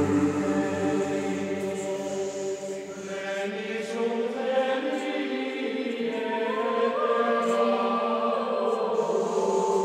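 Background music of choral chanting: voices holding long, sustained notes.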